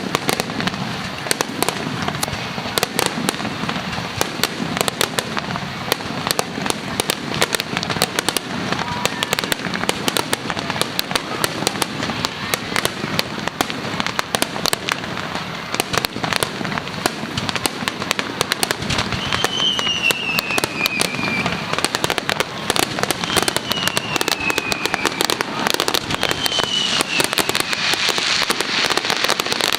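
Fireworks display in a dense, continuous barrage of bangs and crackles. Three short falling whistles sound in the second half.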